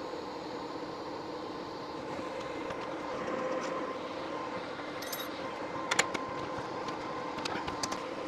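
TIG welding arc hissing on steel over the welder's steady hum; the arc stops about two seconds in. A few sharp metal clinks follow, the loudest about six seconds in.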